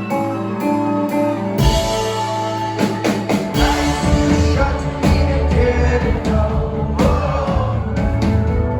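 Indie rock band playing live, with singing over guitar, bass and drums. The low end gets heavier and drum hits come in about a second and a half in.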